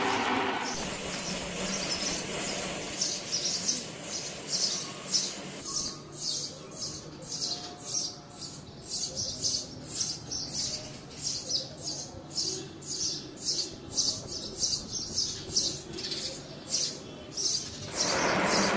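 Stick-welding arc with a 6013 electrode crackling briefly at the start and again near the end. Between them, a regular series of short high-pitched chirps, about two or three a second.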